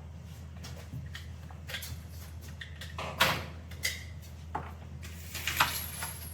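Scattered light clicks and knocks, the loudest about three seconds in, over a steady low hum.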